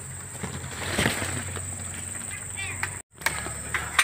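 Steady high-pitched insect drone from the trees, with louder rustling and handling noise about a second in and a few sharp clicks near the end; the sound cuts out for a moment about three seconds in.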